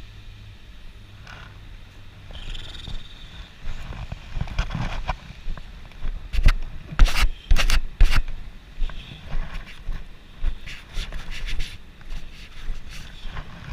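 Camera being handled: scraping and rubbing against clothing, with sharp knocks and clicks on the microphone that are loudest in a cluster in the middle. A low steady hum stops about two seconds in.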